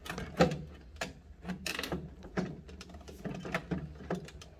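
Irregular clicks and knocks of tools working at the plastic hose clips inside an ice machine as they are pried loose, over a steady low hum. The loudest knock comes about half a second in.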